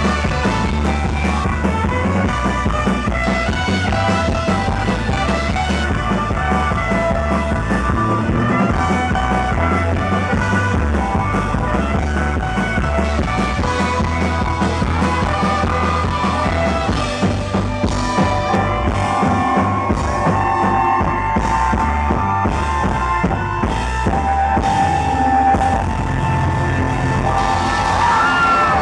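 A band playing live, with drum kit, heard through an audience recording whose sound is loud and poor in quality.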